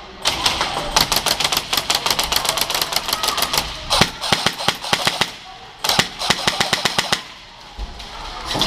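Airsoft guns firing in rapid full-auto strings, three long bursts of evenly spaced shots with short gaps between them.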